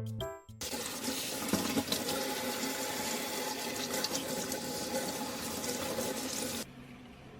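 Kitchen tap running water into a sink, a steady rushing that starts just after a second in and shuts off abruptly near the end.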